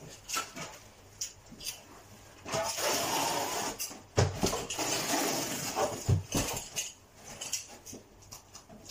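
Carpet being worked into place by hand at the wall edge. A rough scraping noise runs for a few seconds from about two and a half seconds in, with scattered knocks and clanks of hand tools on the floor; two of the knocks are heavier.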